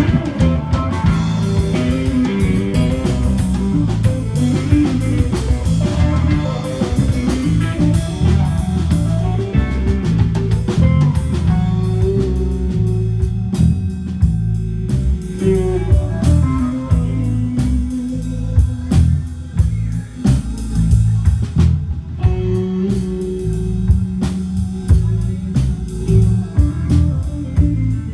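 Live blues played by a power trio: guitar lines over bass and a drum kit, steady throughout.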